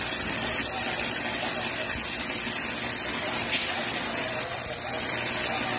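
Stick (arc) welding on steel: the arc's steady crackle and hiss as a bead is laid, with a brief sharp pop about three and a half seconds in.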